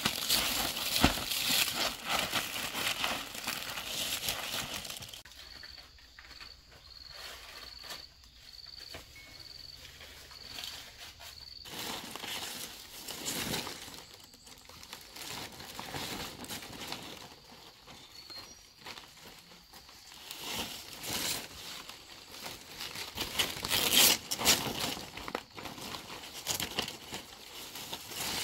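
Dry rustling and crinkling of material being handled, loud for the first few seconds and again in the second half, with a few sharper clattering spikes near the end. In the quieter stretch between, a short high chirp repeats about every 0.7 seconds.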